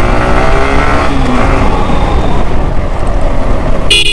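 Yamaha R15 V4M's single-cylinder engine running as the motorcycle rides along, with wind rushing over the helmet microphone. Near the end a vehicle horn sounds in one steady blast.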